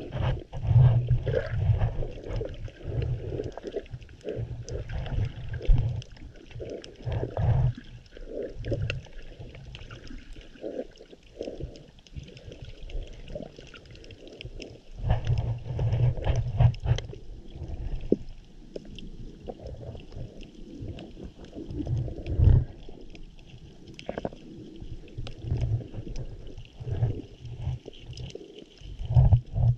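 Muffled underwater sound heard through an action camera's waterproof housing just below the surface: irregular low gurgling and sloshing of shallow water in uneven surges, with scattered faint clicks.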